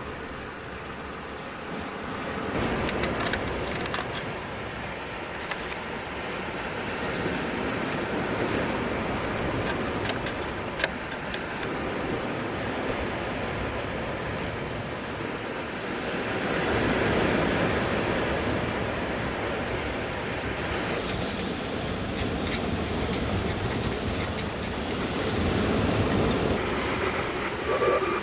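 Sea waves breaking and washing on the shore, the surf rising and falling back in slow surges several seconds apart.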